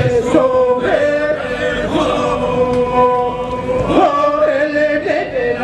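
A group of voices chanting together in long held notes, sliding between pitches: the song of a traditional Timorese circle dance.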